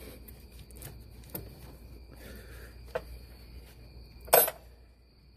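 Cleanup handling sounds in a car's engine bay, a rag wiping and a wrench knocking: a few light knocks, then one sharp clack about four seconds in, over a faint steady high whine.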